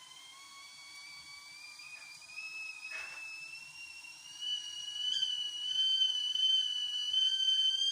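Whistling kettle coming to the boil: its whistle starts faint and low and glides steadily up in pitch while growing louder, then holds a steady, shrill tone over the last few seconds.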